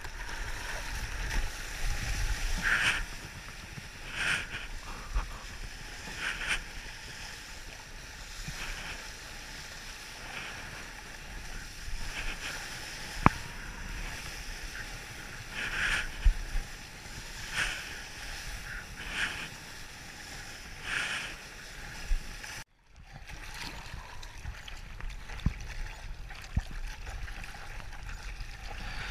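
Seawater sloshing and splashing against a surfboard, heard close up from a camera mounted on the board. A short splash comes every second or two over a steady low rumble of water and wind on the microphone.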